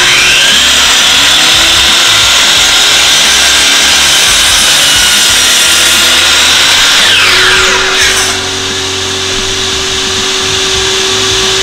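DeWalt sliding compound miter saw starting up, its blade pulled down through cedar boards, then spinning down about eight seconds in once the trigger is let go. A dust-collection vacuum on the saw's hose hums underneath throughout.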